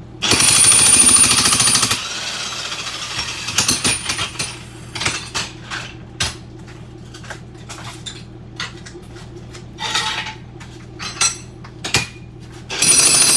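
Jackhammer chipping up ceramic floor tile in a short loud burst at the start and again near the end. In between, broken tile pieces clink and clatter in scattered knocks over a steady low hum.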